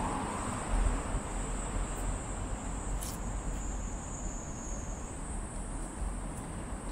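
Urban street ambience: a steady wash of road traffic, with a thin, steady, high-pitched insect trill from the roadside trees.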